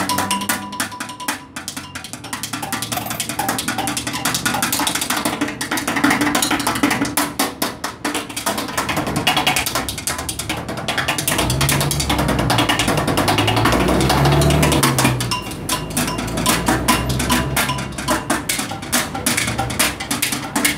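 Rapid drumming with wooden drumsticks on a pole-mounted orange plastic street litter bin, a dense, fast run of strokes that keeps going without a break.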